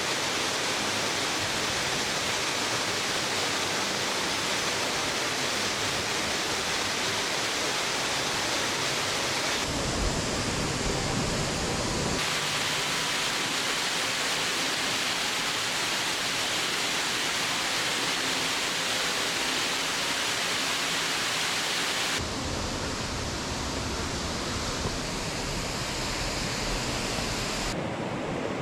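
Waterfall and fast mountain stream water rushing, a loud, steady roar that shifts suddenly in tone about ten, twelve and twenty-two seconds in.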